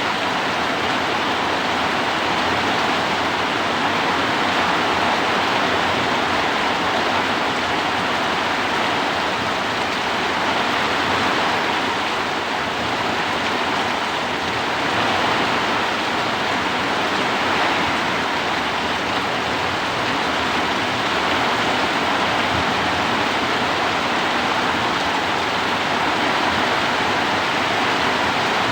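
Heavy rain pouring steadily, with gentle swells in loudness as gusts of wind push it.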